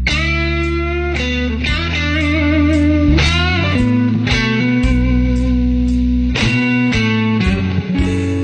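Electric guitar music played through effects: held notes with wavering bends and vibrato over sustained low bass notes that change about once a second.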